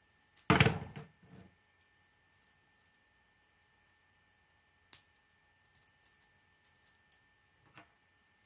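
Plastic K'nex rods and connectors being handled and snapped together: a loud plastic clack about half a second in, then scattered light clicks.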